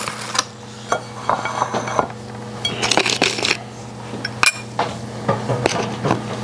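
Plates and cutlery clinking and clattering, a string of scattered knocks and clinks that crowd together about three seconds in, over a steady low hum.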